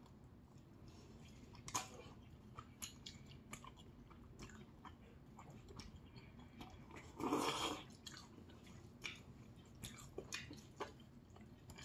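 Close-up eating sounds: soft chewing with small wet mouth clicks, and one louder slurp of jjajangmyeon noodles about seven seconds in.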